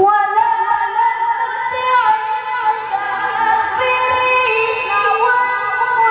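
A boy's voice in melodic Quran recitation (tilawah), amplified through a microphone, holding a long high drawn-out note with small ornamental turns in pitch.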